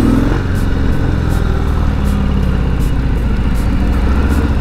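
Harley-Davidson Sport Glide's V-twin engine running steadily while riding, with road and wind noise.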